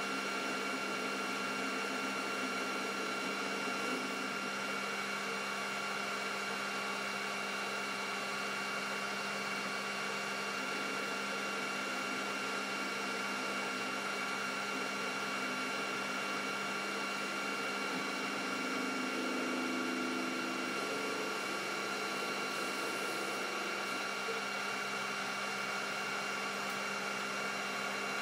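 Metal lathe running steadily, turning a large metal disc with a cutting tool against its face: a constant hum and whine of the motor and gearing.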